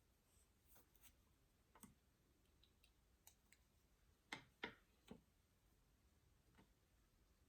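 Near silence in a small room, broken by faint scattered clicks and taps; three louder ones come in quick succession about four to five seconds in.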